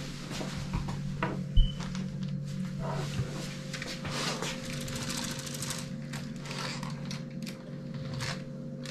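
Small plastic clicks and rattles of a Lego Technic model's parts and gears being handled by hand, with one louder knock about one and a half seconds in, over a steady low hum.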